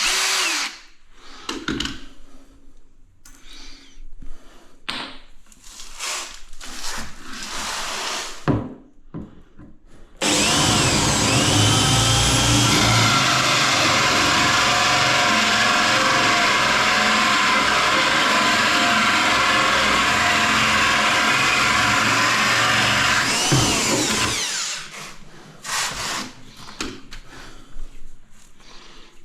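Scattered light knocks and handling noises, then, about ten seconds in, an electric drill starts and runs steadily for about fourteen seconds before stopping.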